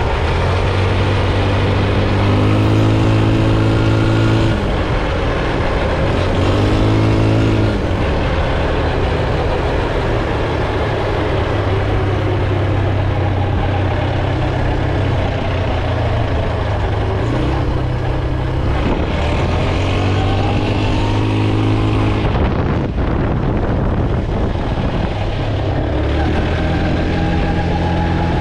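A vehicle engine running steadily, its pitch climbing and dropping a few times as it revs up and eases off.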